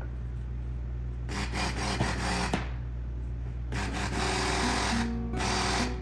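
Stick (immersion) blender running in three short bursts in cold-process soap batter, blending in fragrance oil. Guitar background music plays throughout.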